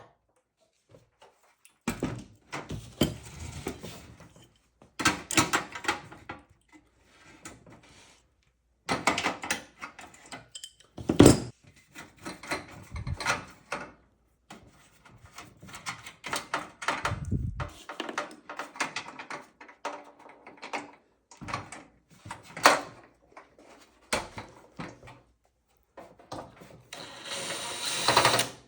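Irregular metallic clattering, knocks and scraping as hand tools work apart a propane camping stove, with one sharp knock and a longer rasping scrape near the end.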